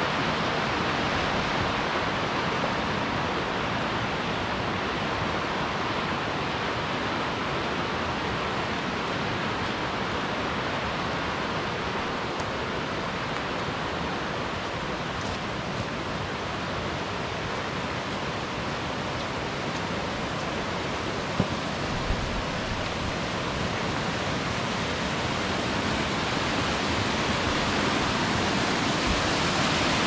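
Steady rush of a rocky mountain river running over rapids, swelling over the last few seconds as a small cascading waterfall comes close. Two short knocks a little past the middle.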